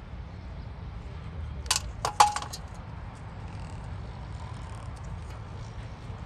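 A quick cluster of sharp metallic clinks about two seconds in, one ringing briefly, over a steady low background rumble.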